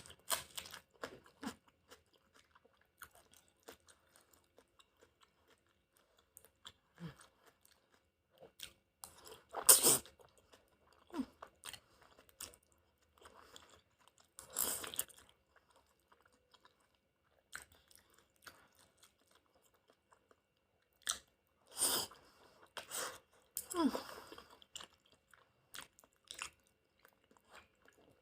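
Close-miked eating of chicken udon: wet chewing and mouth clicks, broken by a few louder noisy bursts about a second long.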